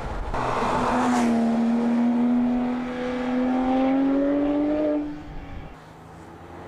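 Porsche 997 GT3's naturally aspirated 3.8-litre flat-six accelerating past, its engine note climbing steadily in pitch for about four seconds, then dropping away about five seconds in.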